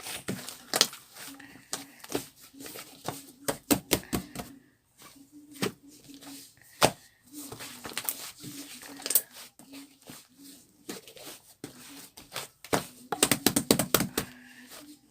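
Mixed slime being squished and pressed by hand, giving irregular clicking and popping in quick clusters, densest about three seconds in, around eight to nine seconds, and again near the end.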